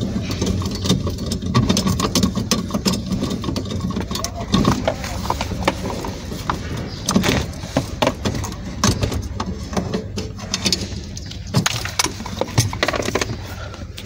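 Hand tools clicking and knocking on metal while the bolts of a clutch pedal bracket under a pickup's dashboard are undone, over a steady low hum.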